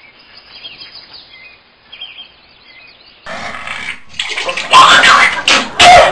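Small birds chirping faintly for the first three seconds. Then a man retching over a toilet bowl: several loud, gagging heaves from about four and a half seconds in.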